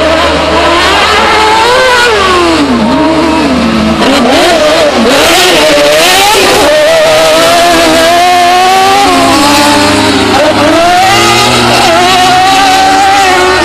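Several autocross race cars running flat out on a dirt circuit, their engines overlapping and rising and falling in pitch as they rev hard and change gear.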